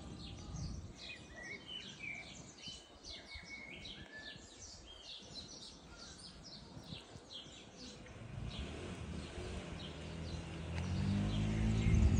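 Small birds chirping, with many short calls, some sliding in pitch, over the first several seconds. From about eight seconds in, a low steady drone with several tones builds up and becomes the loudest sound near the end.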